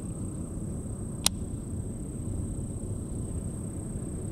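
Steady high-pitched drone of insects over a low rumbling background, with one sharp click about a second in.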